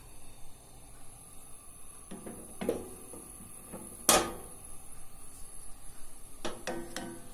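A stirring utensil knocking and scraping against a frying pan as butter is stirred, a handful of sharp knocks with short ringing, the loudest about four seconds in.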